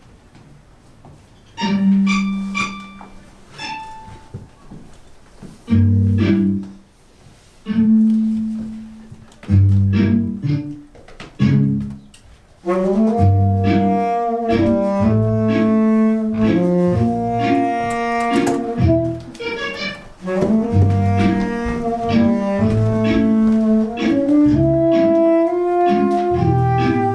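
Instrumental score music: a few separate loud chords and low bass notes with short pauses between them, then, about halfway through, a continuous passage with a moving melody over the bass.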